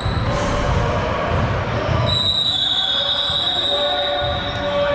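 Indoor basketball game play: a ball bouncing in a gym under a steady din, with one long high-pitched squeal starting about two seconds in and lasting about a second and a half.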